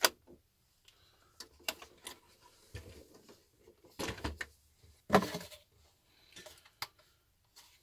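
Knocks and plastic clatter of a WPL B-36 Ural RC model truck being handled and turned over onto its side on a wooden desk. There are several separate sharp knocks, the loudest about four and five seconds in.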